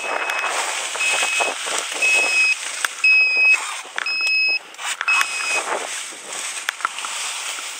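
An electronic beeper sounds six steady, single-pitch beeps, about one a second, each roughly half a second long. Wind is buffeting the microphone underneath.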